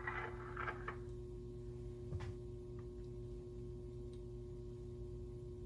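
Faint steady hum with a few soft crackles in the first second and scattered light ticks, from a lidded pan with flatbread cooking under its domed aluminium cover.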